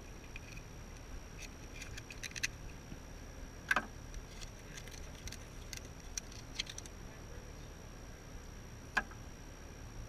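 Scattered sharp clicks and scrapes of a shucking blade against a bay scallop's shell as it is opened and cleaned, the loudest click a little past a third of the way in and another near the end.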